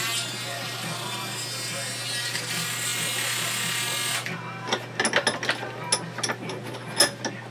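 A small electric motor runs with a steady whine for about four seconds and then stops. Several sharp metallic clicks and knocks follow as small metal pieces and tools are handled at a bench vise.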